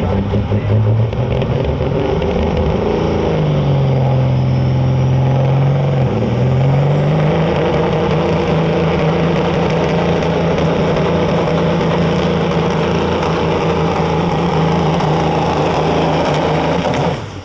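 Pro street Peterbilt semi's big diesel engine running at full throttle, hauling a pulling sled. Loud and steady; its pitch sags for a couple of seconds about three seconds in, climbs back, then holds, before the sound drops away just before the end.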